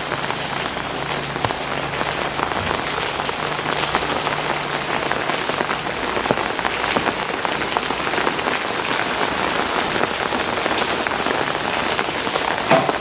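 Steady rain falling on a wet street, a dense patter of many small drop impacts.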